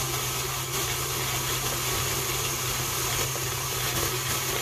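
Electric tilt-head stand mixer running at speed, beating cake batter in a steel bowl: a steady motor whir with a constant low hum. It cuts off just after the end.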